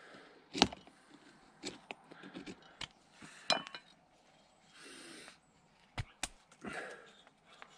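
Handling sounds of knife whittling: scattered sharp clicks and knocks as a knife and a dry hazel stick are worked and knives are set down on and picked up from a wooden stump. The loudest knock comes about half a second in, and there is a short scrape about five seconds in.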